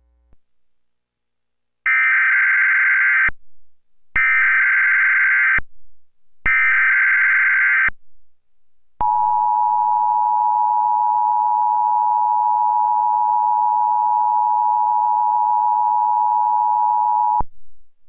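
Emergency Alert System test tones from a Trilithic EASyPLUS cable alert unit. The SAME digital header sounds three times as short bursts of modem-like data noise, each about a second and a half long. Then comes the two-tone attention signal, a steady dual tone held for about eight seconds before it cuts off.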